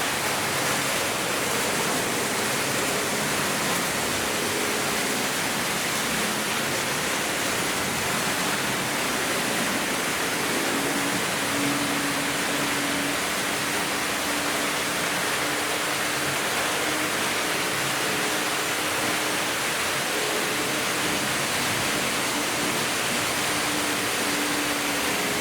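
Several Märklin H0 model trains running at once: a steady rushing of metal wheels on the track, with the hum of a locomotive motor joining as a faint steady tone about ten seconds in.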